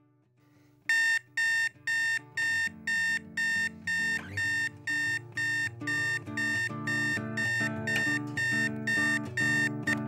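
Electronic alarm clock beeping: short, even, high-pitched beeps about twice a second, starting about a second in. Soft music plays underneath and grows fuller.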